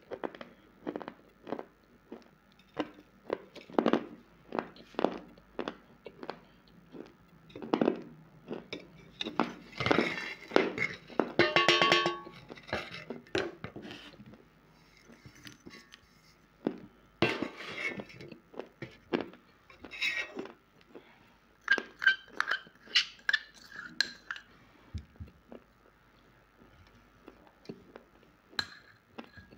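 Close-up crunching of dry clay being bitten and chewed, a quick series of sharp crunches about two a second. A steel plate clinks and rings briefly about halfway through.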